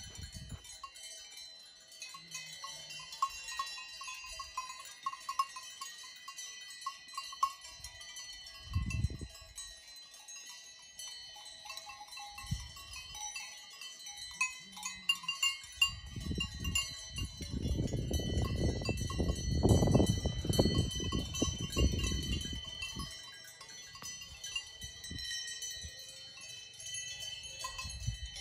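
Livestock cowbells clanking and ringing continuously as the animals graze and move. A low rumble swells in from about halfway through and dies away several seconds later.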